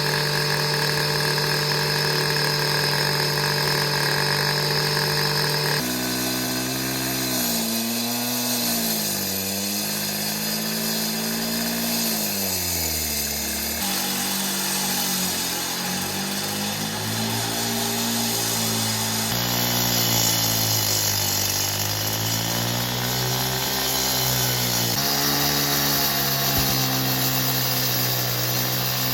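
A small gas engine on a power saw cutting concrete runs hard, its pitch rising and falling as the blade is pushed through the slab and eased off. The sound changes abruptly several times, where separate takes are spliced together.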